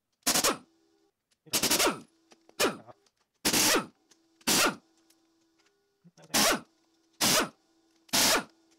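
Electric impact wrench hammering in about eight short bursts as it runs out the crankcase bolts of a Sea-Doo Rotax 1503 engine.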